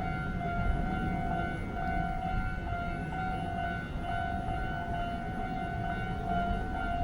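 Japanese railway level-crossing warning bell ringing over and over in a steady, repeating pitched tone, with a low rumble underneath.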